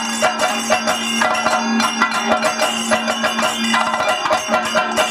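Kathakali stage music: quick, ringing metallic strikes of bell-metal cymbals and gong in a steady rhythm over a held drone note.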